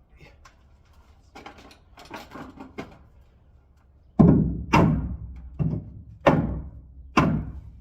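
Faint scattered knocks, then from about four seconds in a run of five heavy thuds at uneven intervals, each ringing out briefly.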